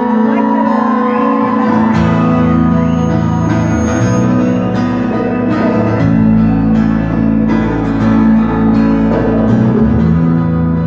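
Live rock band playing, led by guitar, with electric bass notes coming in about two seconds in.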